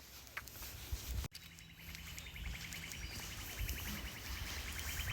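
A bird singing a long, rapid, even trill of high notes. It sets in about a second and a half in and keeps going, with a faint low rumble underneath.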